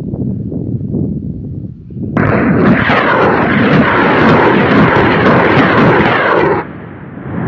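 Truck-mounted multiple rocket launcher firing a salvo of Katyusha rockets. A low rumble gives way about two seconds in to a sudden, loud rushing noise of the rockets leaving the launcher, which lasts about four seconds and then cuts off sharply.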